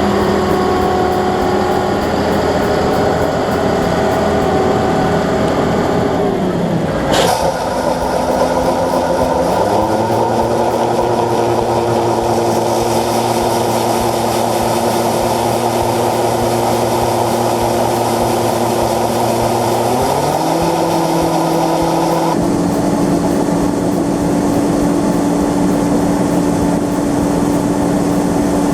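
Large diesel engine of harvest machinery running under load. Its pitch drops about seven seconds in, climbs back a couple of seconds later and steps up again about two-thirds of the way through.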